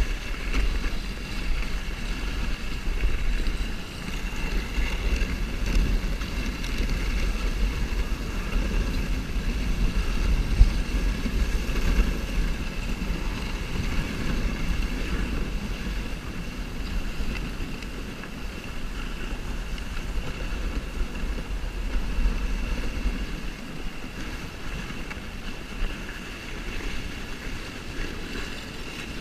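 Sled runners sliding and scraping over packed snow, picked up by a camera riding on the sled, with wind on the microphone: a steady rushing noise over a low rumble.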